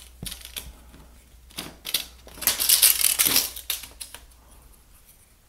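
Scratching and light clicking of a tape measure and marker being worked against a drywall ceiling. A louder, rougher scratching stretch comes about halfway through, then it goes quiet.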